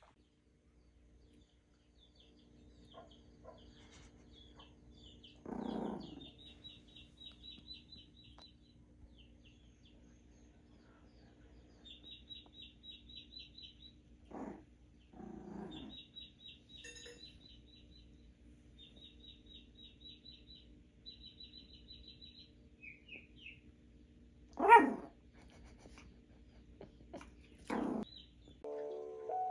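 A small puppy barking in short yelps: once about six seconds in, twice around fifteen seconds, loudest near twenty-five seconds and once more near the end. Between the barks, rapid bird chirping plays from a television.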